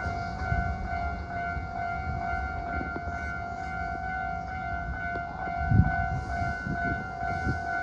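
A Hankyu electric train running past, a steady low rumble with a few heavier knocks from the wheels a little past the middle. A steady high electronic tone sounds throughout.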